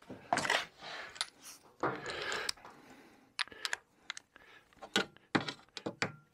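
Air ratchet being readied: the air hose quick-coupler is connected with two short bursts of hissing air in the first few seconds, then a series of sharp metal clicks as the socket and extension are fitted to the ratchet.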